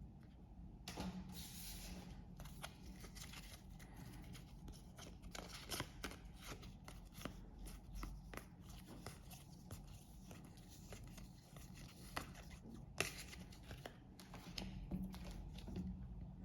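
Trading-card packs and cards being handled: quiet, scattered rustling, light taps and tearing of the packets as they are opened and the cards sorted.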